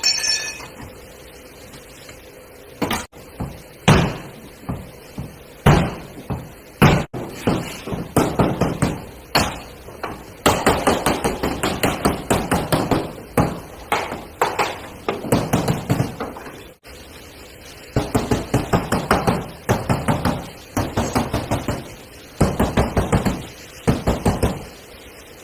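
Hand hammer tapping the sheet-metal front wing of a Toyota Hilux, panel-beating the bodywork back into shape. A few separate blows come first, then several quick runs of rapid taps with short pauses between them.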